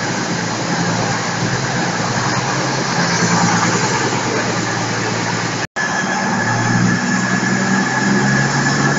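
Diesel train engine idling steadily with a low hum. The recording cuts out for an instant about six seconds in and the idling carries on.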